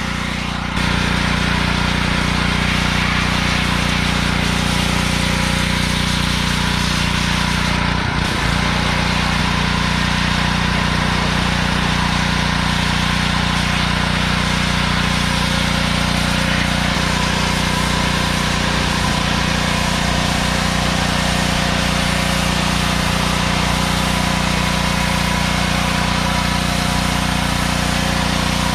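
Power washer running steadily, its motor humming under the hiss of the high-pressure spray as it blasts barnacles off a boat hull. It gets louder about a second in.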